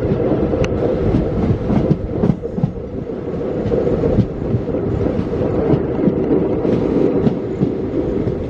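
Passenger express train running at speed, heard from on board: a steady heavy rumble from the coach, with the wheels clattering and knocking irregularly over the rail joints.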